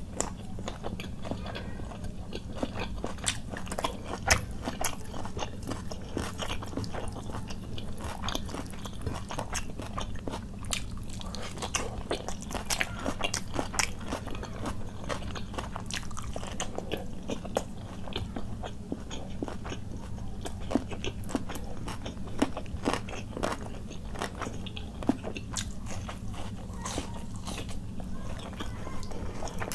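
Close-miked chewing and crunching of a hand-eaten mouthful of khichuri rice with raw cucumber and carrot salad, with many short crisp clicks and wet mouth noises. A steady low hum runs underneath.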